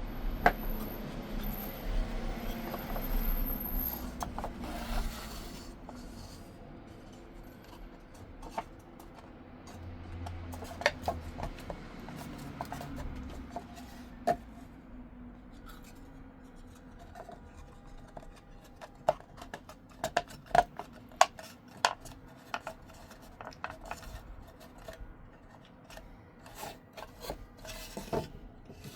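Hand woodworking on dovetail joints: rubbing and scraping of tools on wood for the first few seconds, then a run of scattered sharp taps and knocks that grow thickest in the last ten seconds.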